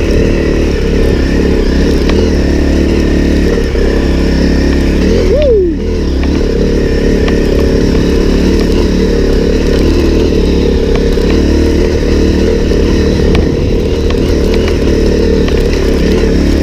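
A 2017 Honda CRF250L's single-cylinder four-stroke engine running steadily while the bike is ridden. About five and a half seconds in, the revs rise sharply and fall straight back.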